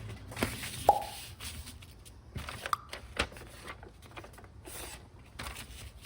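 Hands handling wires and small parts: rustling with several sharp clicks, the loudest about a second in.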